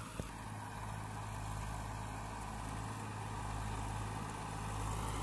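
Massey Ferguson 241 tractor's three-cylinder diesel engine running steadily under load while pulling a seven-tine cultivator through the soil, growing slightly louder toward the end as the tractor approaches.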